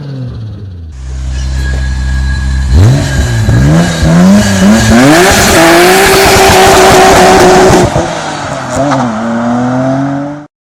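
Tuned performance car engine going from idle to a climbing rev in several steps, held high for a couple of seconds with a loud hiss over it, then dropping back. One short blip of the throttle follows before it settles and the sound cuts off.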